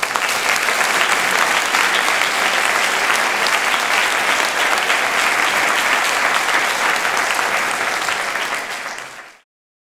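A large audience applauding steadily. The applause tails off and then cuts off just before the end.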